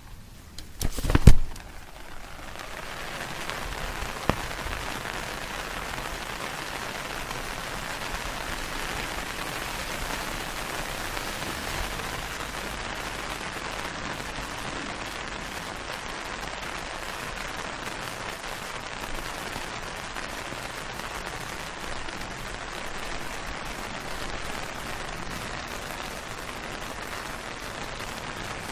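An umbrella opens with a sharp, loud snap about a second in. Then rain falls steadily on its canopy, an even hiss with a single click a few seconds later.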